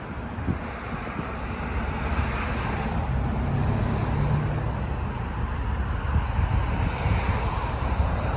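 Wind buffeting the microphone over a low vehicle engine rumble, with a steady low hum for about a second midway.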